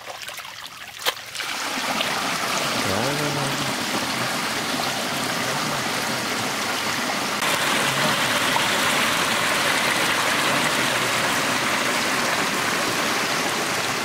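Muddy water gushing through a freshly opened channel in a mud bank and pouring over a bamboo slat fish trap screen, a steady rush that starts about a second and a half in and gets louder about seven seconds in. Before it, hands splash and squelch in the mud.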